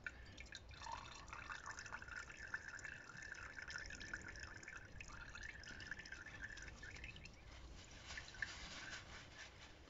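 Diesel trickling and dripping off a lifted-out fuel filter back into its housing: a faint, steady thin stream with many small drips.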